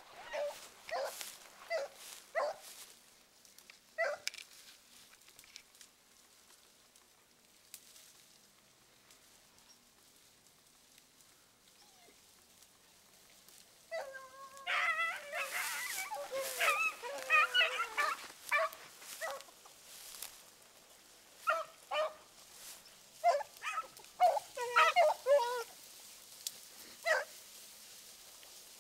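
Hunting beagles barking and baying in short calls. They fall quiet for several seconds, then break into a run of rapid, overlapping bays about halfway through, followed by scattered calls.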